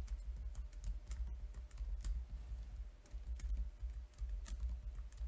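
Typing on a computer keyboard: faint, irregular key clicks in short runs with brief pauses, as numbers in code are edited.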